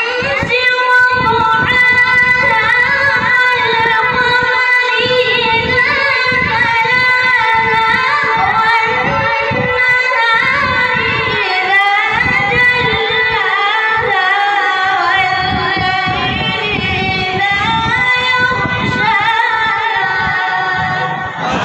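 A boy qari reciting the Quran in melodic tajweed style, one long unbroken phrase with ornamented, wavering pitch, breaking off near the end.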